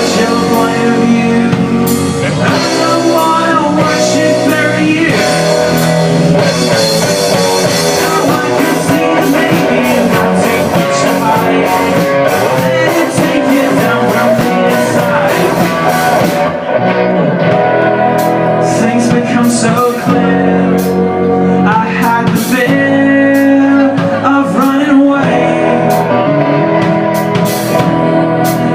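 Rock band playing a song with electric guitar, drum kit and singing. About halfway through, the high cymbal wash drops away, leaving separate drum hits under the guitar and voice.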